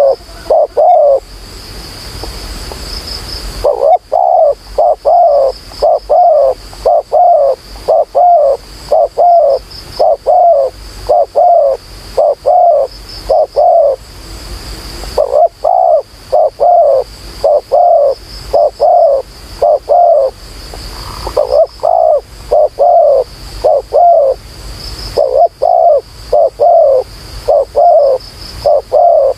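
Spotted dove cooing in long runs of quick, low coos, about two a second, pausing briefly a few times.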